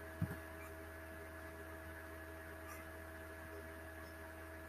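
Steady electrical mains hum from the recording setup, with a brief soft low thump about a quarter second in.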